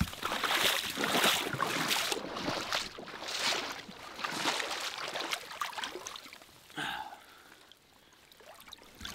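Wading through shallow water in chest waders, water splashing and sloshing with each stride, easing off in the last few seconds.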